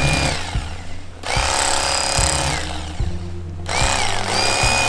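Corded electric fillet knife running as it cuts along the ribs of a striped bass. The motor whir rises and falls in pitch as the blades bite, and cuts out briefly about a second in and again around three seconds.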